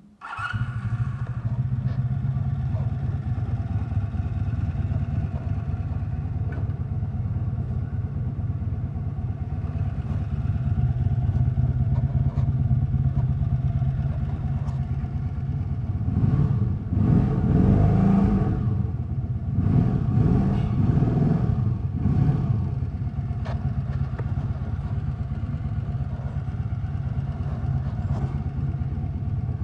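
Honda V65 Magna's V4 engine idling steadily. It is revved a few times past the middle, then settles back to idle.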